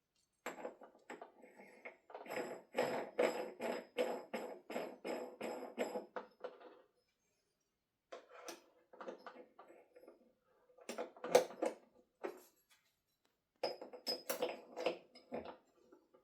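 Hard parts being handled and knocked together: a quick run of about three clacks a second, then short bursts of clatter with silent gaps between.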